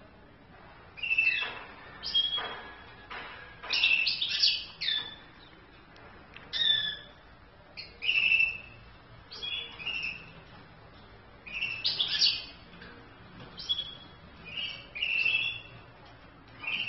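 Short chirping calls from a caged European goldfinch and canary pair, one brief call or a quick cluster of calls every second or two, with short quiet gaps between.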